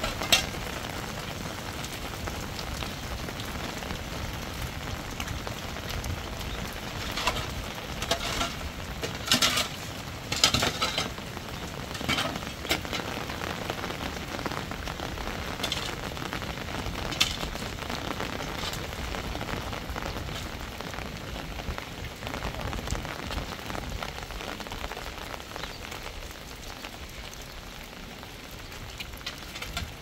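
Steady hiss of heavy rain, with scattered clicks and clatters between about 7 and 13 seconds in and once more around 17 seconds.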